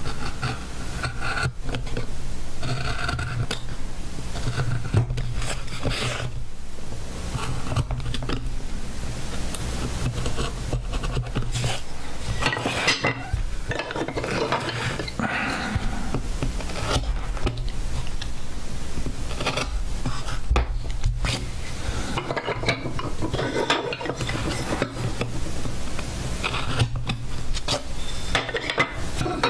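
Small hand carving gouge cutting into a wooden board: uneven runs of scraping strokes and short clicks as the blade shaves out chips, with a hand rubbing and brushing across the carved surface. A steady low hum runs underneath.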